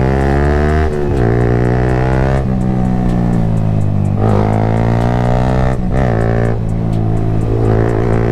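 Yamaha MT-15's 155 cc single-cylinder engine through an Akrapovic exhaust, running under way with its pitch rising and dropping back several times as the throttle is opened and rolled off.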